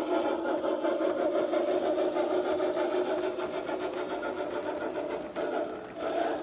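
Lionel O-gauge model freight train rolling past close by: a steady metallic rumble of the wheels on the rails, with many light clicks as the cars cross the track joints, dipping briefly near the end.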